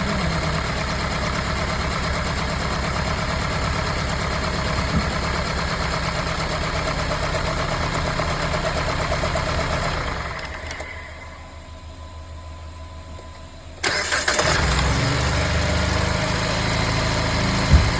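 Car engine idling steadily, then shut off about ten seconds in and winding down. It is restarted about four seconds later, catching at once and settling back to idle.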